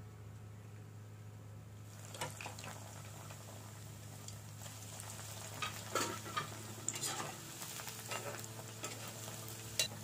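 Bread pieces deep-frying in hot oil in an iron kadai, sizzling and crackling from about two seconds in, with a few sharper clicks as a slotted spoon stirs and lifts them.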